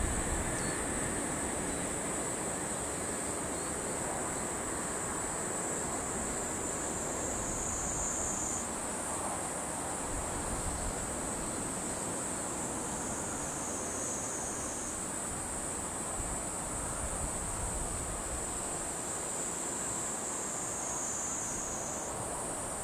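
Insect chorus: a steady high-pitched buzzing that sags slightly in pitch for a second or two about every six seconds, over a low, even rush of wind.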